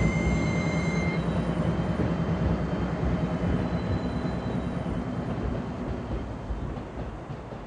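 Train running on the rails with a steady rumble. A brief high tone sounds for about the first second, and the rumble slowly fades toward the end.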